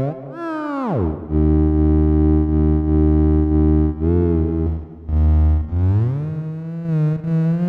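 Budget theremin playing one of its built-in synth-style voices: a buzzy tone that swoops up and plunges to a low held drone, wobbles briefly about four seconds in, then glides slowly upward near the end, with a little reverb.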